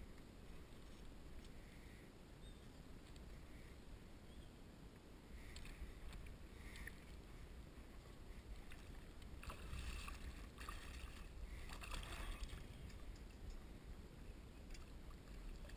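A hooked largemouth bass thrashing and splashing at the surface beside a kayak, in a burst of splashes from about nine to twelve seconds in, over a faint low rumble.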